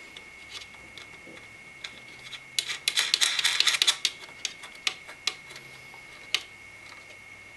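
Thumb screws on a CPU cooler's retention brackets being turned by hand: scattered light metal clicks and ticks, with a quick run of rapid clicking about three seconds in.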